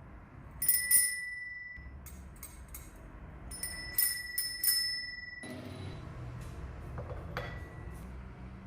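Bicycle bell rung: two strikes, then a quick run of four, each ringing out at one clear high tone. The ringing cuts off suddenly, followed by a few light clicks and one last short ring.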